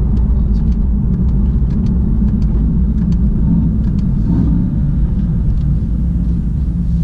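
Mercedes-AMG GT S on the move, heard inside the cabin: a steady low rumble from its twin-turbo V8 and the road, with light irregular ticks over it.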